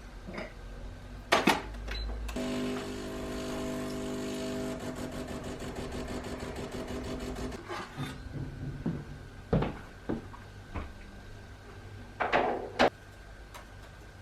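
A small machine whirring steadily for about five seconds, with a fast, even rhythm. Sharp clicks and knocks come just before it starts and several more after it stops.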